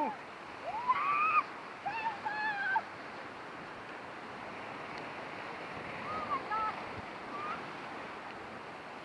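Whitewater rapids rushing steadily around a raft, with short cries from the rafters in the first three seconds and again around six to seven seconds in.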